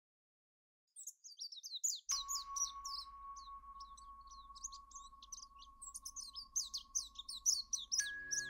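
Small birds chirping: a busy run of short, quick high calls that starts about a second in. A steady held tone with a low hum beneath comes in about two seconds in, and further tones join near the end.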